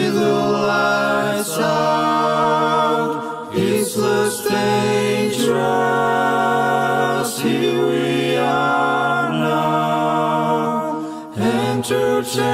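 Music: layered wordless voices, choir-like, holding sustained chords that change every few seconds, with a few brief sharp accents.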